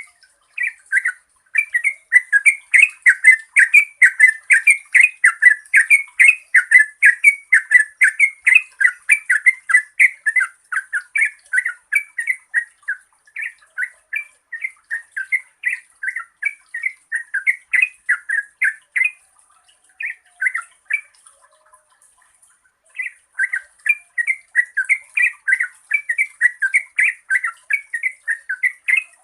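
Yellow-vented bulbul singing a long, unbroken run of quick, chattering notes, several a second, that breaks off for about two seconds roughly two-thirds of the way through and then starts again. A faint, steady high hiss lies beneath it.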